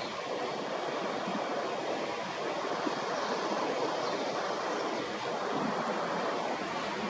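Steady rushing noise of ocean surf washing on a beach.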